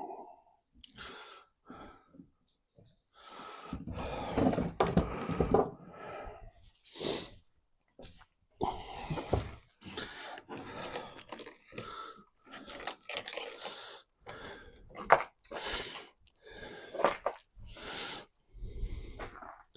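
Irregular handling noise of parts and wiring worked by hand: rustles, scrapes and scattered sharp clicks, the sharpest about fifteen seconds in, with short quiet gaps between them.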